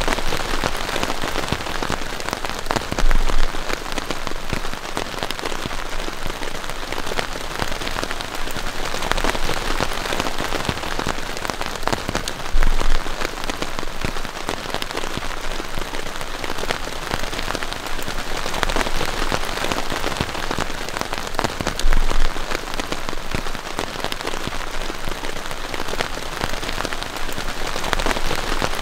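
Heavy rain falling steadily on a surface, a dense hiss of many drops. There are three brief low thumps, about three seconds in, near the middle, and about three-quarters of the way through.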